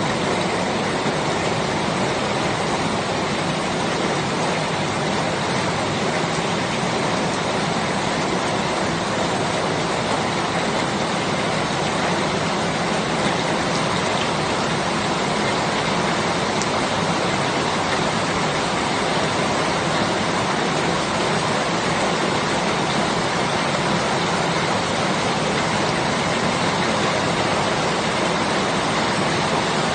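Rain falling steadily, a continuous even hiss that does not let up.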